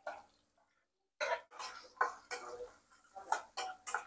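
Metal slotted spoon stirring chopped onions, peanuts and green chillies in a nonstick kadai: quick scrapes and taps against the pan, about three a second, starting about a second in.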